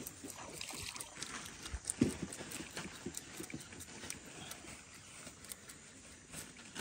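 A knife scaling fish on a wooden board: quick, irregular scraping strokes, with a stronger thump about two seconds in.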